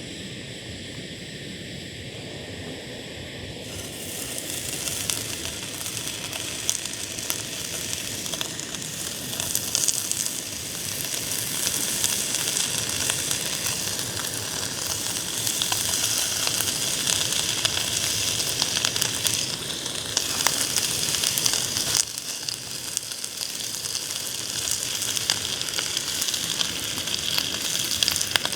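Pork sizzling and spitting as it grills in a hot pan, a steady frying hiss full of small crackles that gets louder about four seconds in.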